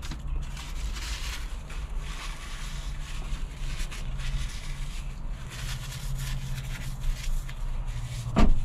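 A vehicle engine running close by: a steady low hum whose pitch shifts a little, with a rough hiss above it. A brief louder sound comes near the end.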